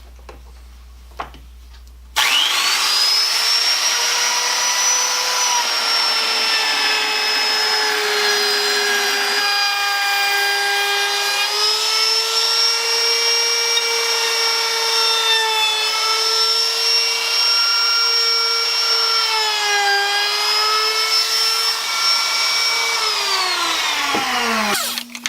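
Electric wood router switched on about two seconds in, spinning up to a high whine, then cutting along the edge of a wooden piece, its pitch dipping slightly under load. Switched off near the end, its whine falls away as it winds down.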